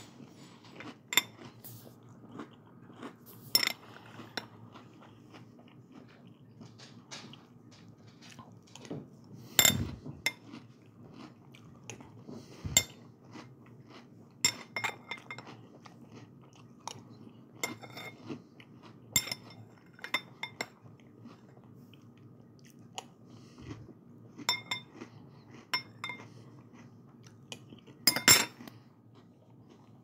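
Eating crunchy cereal: a spoon clinks against the bowl at irregular moments, with crunching and chewing between the clinks. The loudest clinks come about ten seconds in and near the end.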